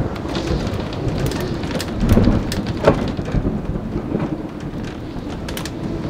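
Thunderstorm: steady heavy rain, with thunder rumbling up about two seconds in.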